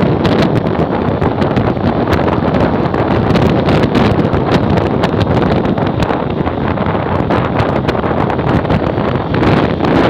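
Loud, steady wind noise buffeting the microphone of a phone on a moving motorcycle, with a crackling rush throughout and the motorcycle's running and road noise under it.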